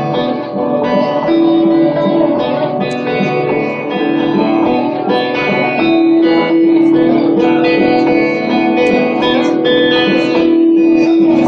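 Post-rock band playing live: electric guitar holding long notes over drums and cymbals.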